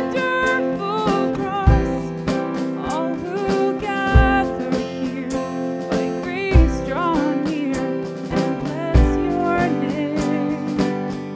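A woman singing a worship song into a handheld microphone over instrumental accompaniment, with a deep low hit about every two and a half seconds.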